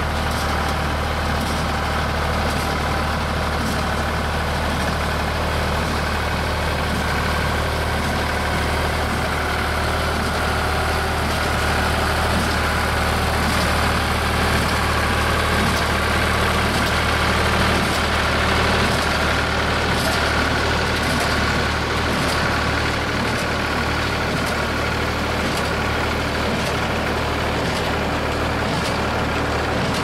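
Diesel farm tractor engine running steadily under load while pulling a Case 230 small square baler, with the baler's repeated sharp clacks, getting a little louder as the rig passes close.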